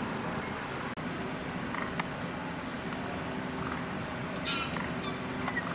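Steady outdoor background noise with a low hum, broken by a few faint clicks and a brief high rustle about four and a half seconds in.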